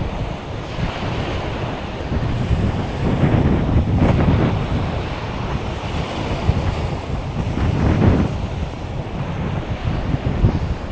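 Waves washing onto the beach, mixed with wind buffeting the microphone in low rumbles; the noise swells louder about three to four seconds in and again near eight seconds.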